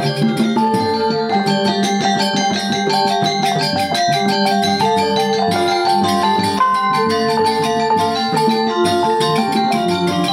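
Background instrumental music: a busy melody of quick pitched notes over held bass notes.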